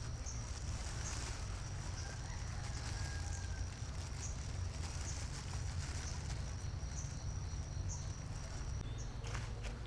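Outdoor ambience: a steady high-pitched insect drone with short chirps about once a second, over a low rumble.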